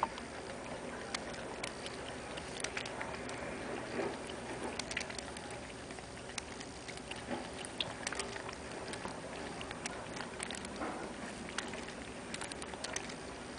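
A cat licking and lapping water at the nozzle of a spray bottle: a string of small, irregular wet clicks and mouth smacks.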